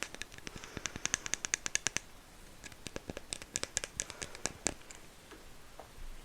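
Close-miked light tapping: quick runs of small sharp taps, very fast in the first two seconds, then a sparser run a few seconds later that dies away near the end.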